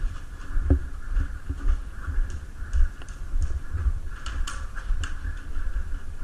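Scattered sharp clicks, a few closely spaced about two to five seconds in, over irregular low bumping and a steady hiss.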